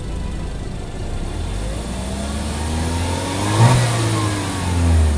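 Peugeot 3008's 1.6-litre turbocharged inline-four engine revving: the pitch climbs for about two and a half seconds and falls back, with a short knock at the peak.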